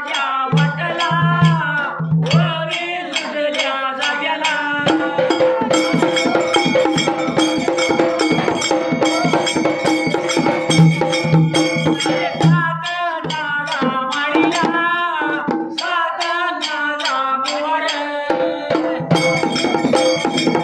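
Dhangari ovi folk singing: a male voice sings into a microphone over a dhol and a small stick-beaten hand drum, with jingling hand percussion keeping a quick, even beat. From about five to twelve seconds in, the voice holds long notes over busier strokes.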